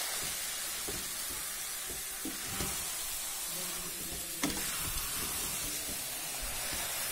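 Grated-carrot halwa sizzling in ghee in a pan while a perforated metal spatula stirs it, with a steady hiss and scattered scrapes. There is a sharper knock about four and a half seconds in.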